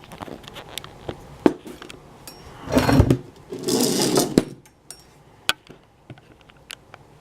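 Small metal clicks and clinks from handling an opened pin-tumbler challenge lock and lockpicking tools, with a heavier knock and a spell of rustling handling about three to four seconds in.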